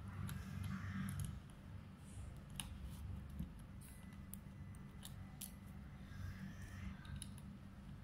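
Noble Wedge combination cable lock being fitted into a laptop's security slot and handled: scattered small clicks.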